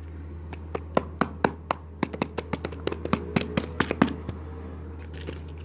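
Hands tapping and handling objects: a quick, irregular run of sharp clicks and taps, about four a second, lasting some three and a half seconds over a steady low hum.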